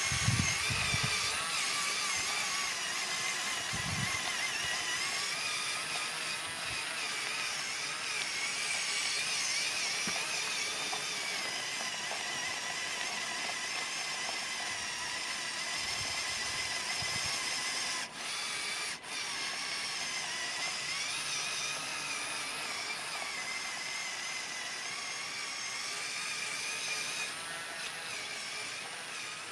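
Electric motors and gear train of a LEGO Technic Mercedes-Benz Zetros trial truck whining steadily as it drives, the pitch wavering up and down with the load. There is a low knock about four seconds in, and the whine drops out briefly twice just after the middle.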